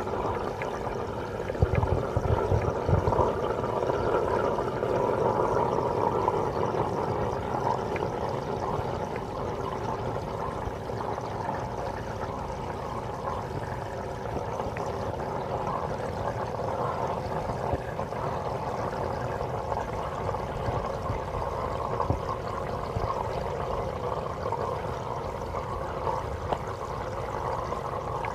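Steady running and trickling water from an aquarium's circulation, with a few low bumps about two seconds in.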